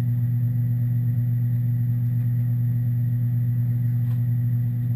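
Steady low mechanical hum, even in level throughout, with a faint tick about four seconds in.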